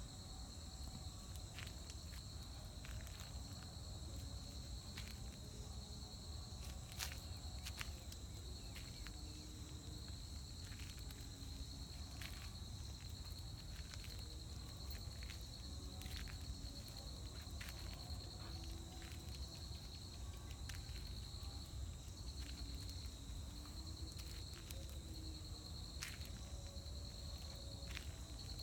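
Insects trilling in a steady, high-pitched chorus, with irregular sharp clicks and knocks every second or two over a low rumble.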